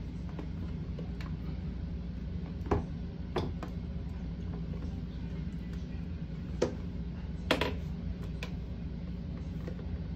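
Several sharp plastic clicks and knocks as a bidet toilet seat and its lid are lifted and handled, the loudest about three seconds in, over a steady low hum.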